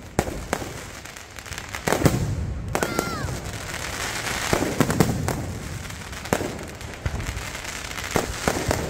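Aerial fireworks bursting overhead: a string of sharp bangs at irregular intervals, the loudest about two seconds in, over a steady crackle of burning stars.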